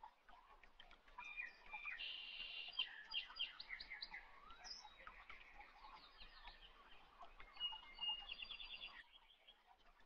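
Faint birdsong: small birds chirping in quick repeated trills, starting about a second in and stopping about a second before the end.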